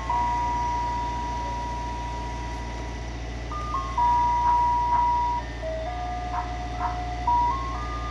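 Ice cream truck's roof loudspeakers playing its jingle: a plain electronic tune of single notes stepping up and down, some held for a couple of seconds, over a steady low hum.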